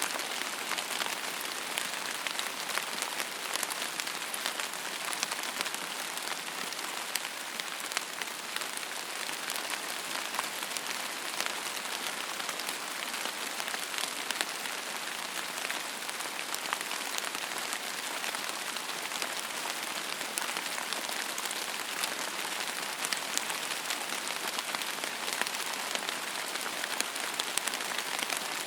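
Steady rain falling and pattering on a surface, a dense, even hiss with many small drop ticks.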